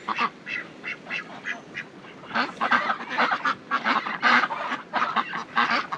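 A flock of domestic ducks, Indian runners and crested ducks, quacking in many short, overlapping calls, growing busier about two seconds in.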